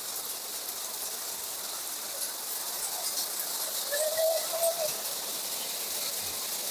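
Steady rain falling, an even hiss of drops. About four seconds in, a short faint pitched sound rises briefly over it.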